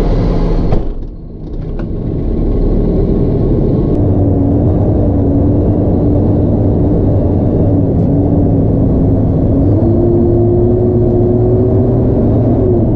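Truck engine running while driving, heard from inside the cab: a steady drone whose pitch steps up about ten seconds in and drops back near the end.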